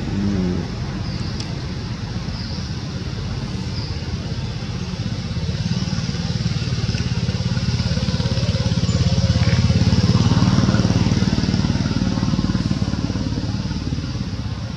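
A motorbike engine running at low revs, growing louder to a peak about ten seconds in and then fading away.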